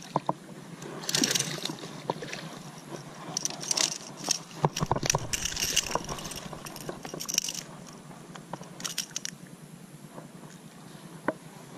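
A hooked largemouth bass splashing at the surface, then irregular rustling, scraping and knocks as it is brought up onto the grass bank and handled, with a low thump about five seconds in.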